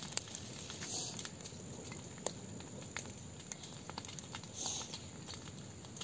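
Burning grass and scrub crackling: scattered, irregular small snaps and pops over a steady low noise, with a couple of brief hisses.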